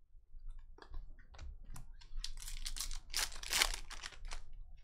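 A few light clicks of trading cards being handled, then the foil wrapper of a trading-card pack crinkling and crackling in two spells as it is torn open.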